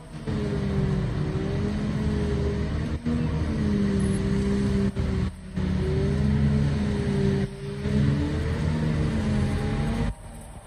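Claas 960 forage harvester chopping triticale and blowing it into a trailer, with the towing semi truck's engine running alongside: a steady, loud engine drone whose pitch wavers slowly as the load changes, with a few brief drops in level.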